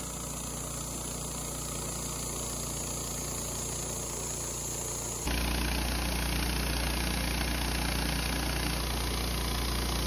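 Wood-Mizer LT15 bandsaw sawmill running steadily, its engine under load as the band blade cuts a board off a sugar pine cant. The sound steps up louder about five seconds in.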